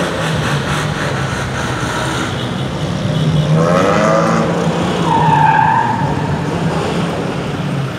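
Engines of off-road vehicles running steadily as a convoy passes.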